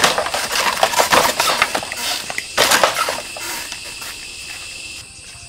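Woven bamboo gate rattling and scraping as it is pulled open by hand: a dense crackling clatter for about two seconds, then a shorter burst of clatter a moment later.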